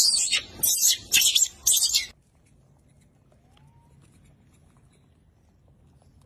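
Baby macaque screaming in a rapid series of short, shrill cries, about two a second, which stop abruptly about two seconds in, leaving only faint background.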